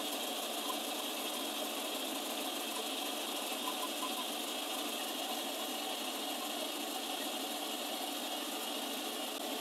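Mill-drill spindle running steadily while a boring bar feeds down through a steel swing arm's needle-bearing bore, opening the bore about three thousandths to true it after welding pulled it out of round.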